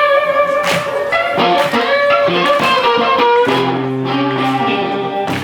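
Electric blues guitar howling: high notes that bend and waver, with low held notes joining about three and a half seconds in.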